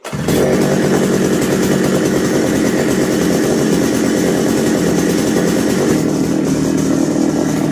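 Mini tiller's small petrol engine pull-started on its recoil starter, catching at once and running fast and steady. Its tone softens slightly about six seconds in.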